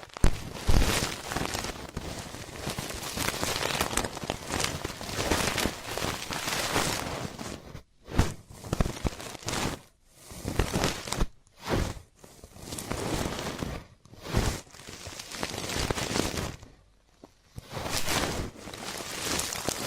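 Close-up ear-cleaning sounds: an ear pick scraping and rustling in irregular strokes with sharp clicks, broken by several brief pauses and a longer one near the end.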